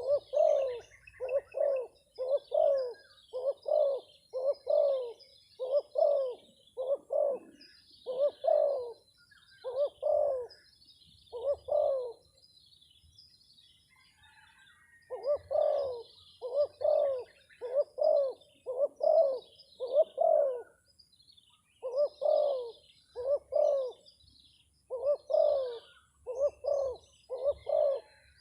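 Spotted dove (terkukur) cooing in long runs of short, deep coos, about one a second, with a break of a couple of seconds near the middle before it starts again. Faint chirping of small birds can be heard higher up.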